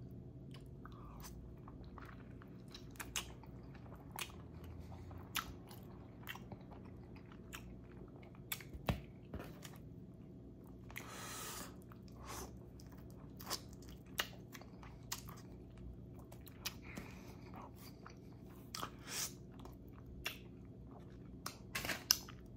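Close-up chewing and biting of a chicken wing: scattered wet mouth smacks and crunchy clicks, with a faint steady hum underneath.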